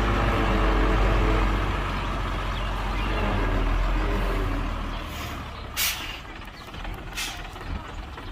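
Heavy diesel engine of earthmoving machinery running with a deep, steady rumble, which dies down about five seconds in. It is followed by two short, sharp hisses of air, the second about a second and a half after the first.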